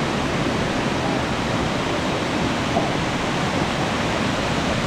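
Mingo Falls, a tall waterfall, pouring: a steady, even rush of falling water.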